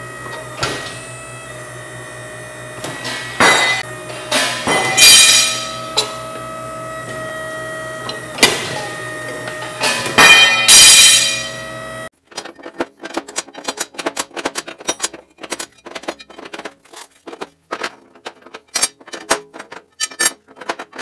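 A metal shear's motor running steadily while it cuts steel bar stock, with several loud shearing strokes, some leaving the steel ringing. About twelve seconds in the hum stops abruptly and a quick, irregular run of light metal clicks and clinks follows.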